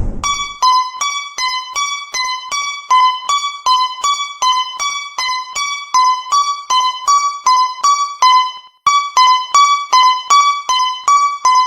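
Japanese railroad crossing (fumikiri) warning bell ringing: a fast, even clang alternating between two close pitches, about four strikes a second, with a brief break about nine seconds in.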